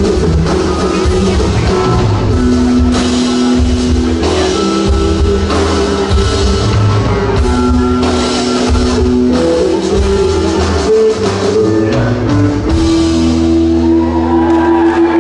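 Live rock band playing: distorted electric guitars, bass and a drum kit, heard loud from within the audience.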